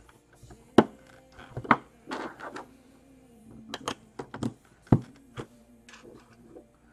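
LEGO pieces being handled and pressed or set down on a desk: about six sharp knocks and clicks, loudest about a second in and near five seconds, with a short rustle around two seconds in. Faint holiday music plays underneath.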